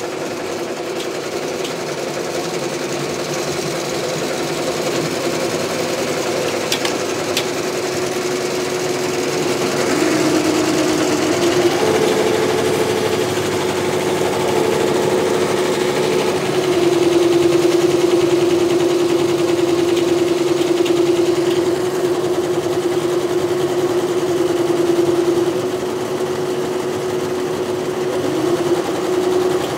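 BAi multi-needle embroidery machine running and stitching, a steady mechanical hum with rapid stitching whose pitch shifts a few times as the machine's speed changes.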